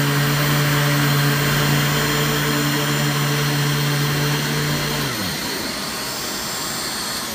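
Riccar Retriever vacuum cleaner running steadily, then switched off about five seconds in, its motor hum dropping in pitch as it winds down and the rush of air fading.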